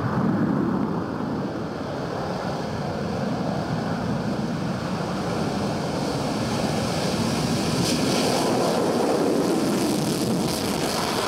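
Steady rushing jet noise from an F-22 Raptor's twin Pratt & Whitney F119 engines during a takeoff run. The noise turns hissier about eight seconds in as the afterburners light.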